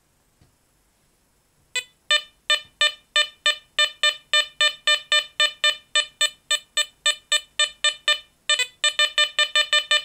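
Garrett ACE APEX metal detector beeping with a repeated pitched tone as a small copper coin passes over its coil, about three beeps a second from about two seconds in, quickening to about six a second near the end. The tone marks a non-ferrous copper target with a fairly high VDI reading of 78.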